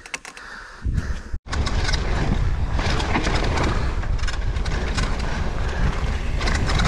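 A downhill mountain bike descending a dirt forest trail at speed: steady wind buffeting on the on-board camera's microphone, mixed with tyre noise and the rattle of the bike over the ground. It starts about a second in, after a quiet stretch with a few faint clicks.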